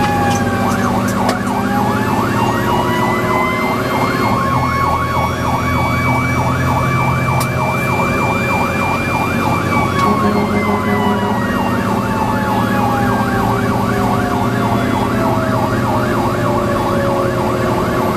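Fire engine sirens heard from inside the cab while responding: a fast, repeating yelp together with a slow wail that climbs, holds and sinks over several seconds, over the steady drone of the truck's diesel engine.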